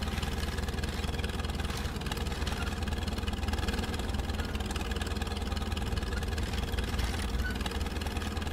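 An engine running steadily at idle: a constant low hum that does not change.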